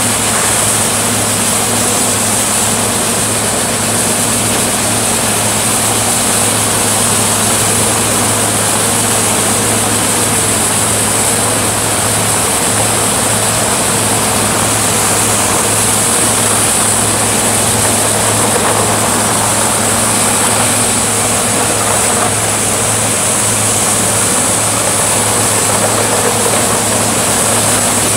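Chain flail delimber running under load: the machine's heavy engine drones steadily while the spinning drums of heavy chains flail the limbs and bark off tree stems being fed through, with a constant hiss and rattle of debris.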